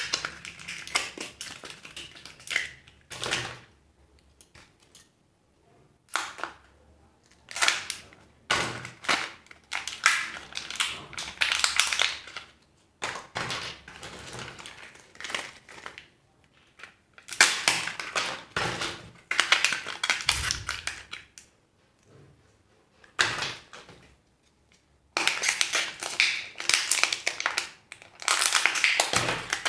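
Plastic wrappers of surprise eggs and candy packets crinkling and tearing, with sharp snapping clicks, in irregular bursts separated by short pauses.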